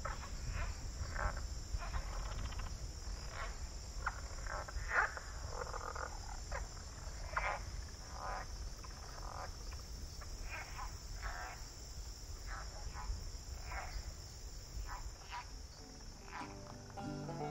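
Swamp ambience: a steady high insect trill with frogs giving short calls at irregular intervals, roughly one every second. Banjo music comes in near the end.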